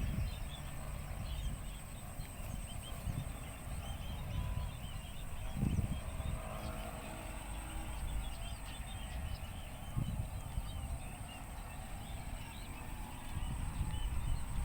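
A flock of Eurasian tree sparrows chirping, many short chirps overlapping all through, over a low rumble with a few dull thumps.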